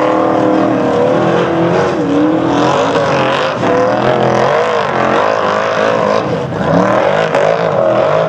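Formula Offroad hillclimb buggy's engine revving hard, its pitch rising and falling, as the spinning tyres dig up a steep gravel slope and throw dirt.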